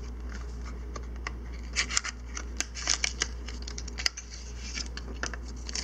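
Small hand tools clicking and scraping against a smartphone's internal parts during disassembly: a run of irregular sharp ticks and scratches, busiest in the middle, over a steady low hum.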